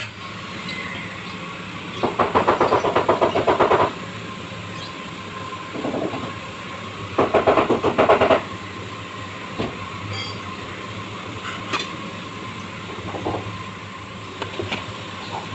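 A grinder running with a steady whine, biting into the work twice for a second or two each time with a loud rapid rattle, with a few light knocks in between.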